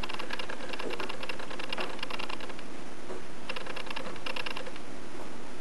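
Rapid light clicking and tapping as wet, raw potato strips are handled and laid onto a dry metal cookie sheet, in two runs: a long one at the start and a shorter one past the middle.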